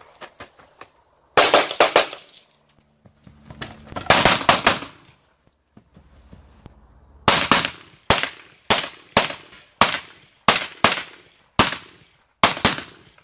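Pistol shots fired during a practical-shooting stage: two rapid strings of several shots in the first five seconds, then, after a pause, single and paired shots about every half second until near the end.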